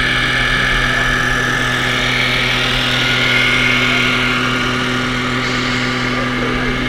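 Simulated diesel truck engine running steadily from the sound module of a large-scale RC semi truck, a constant engine hum.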